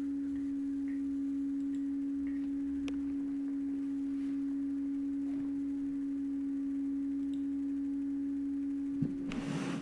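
A steady, pure electronic tone hums unbroken, with a few faint clicks. Near the end, a knock is followed by a brief burst of rustling noise.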